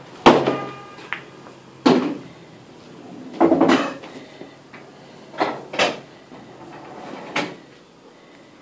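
A pool shot: the cue strikes the ball, and pool balls clack together and knock against the table. About seven sharp knocks come over several seconds, the loudest right at the start, with a longer rattle about three and a half seconds in.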